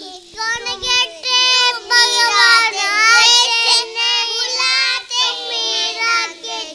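Young children singing a song in high voices, the notes held and wavering, with short breaks between phrases.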